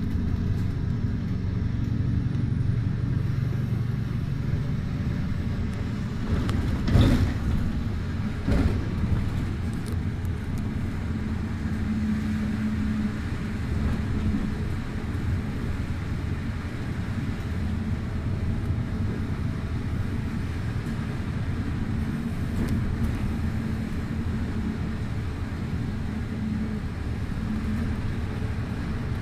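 Bus riding along, heard from inside: a steady low engine and road rumble with an engine hum that shifts a little in pitch. Two sharp knocks, a second and a half apart, stand out about a quarter of the way in.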